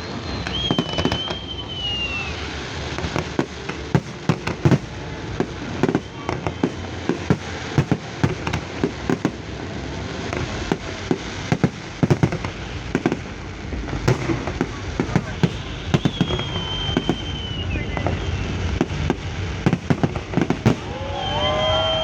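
Fireworks display: a dense, irregular run of bangs and crackles, with a few high whistles gliding downward.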